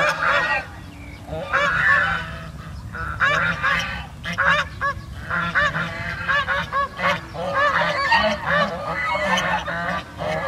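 A small flock of white domestic geese honking: short calls, many of them overlapping, repeated over and over.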